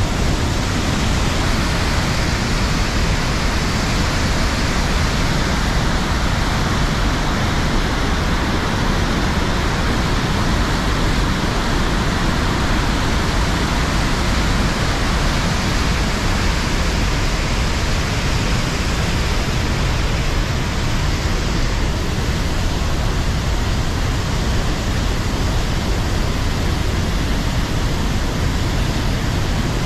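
Loud, steady rush of a large waterfall and white-water river rapids close by.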